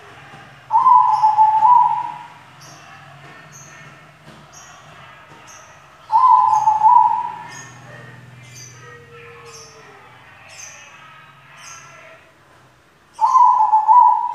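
White zebra dove (perkutut) cooing: three coo phrases about six seconds apart, each a little over a second long.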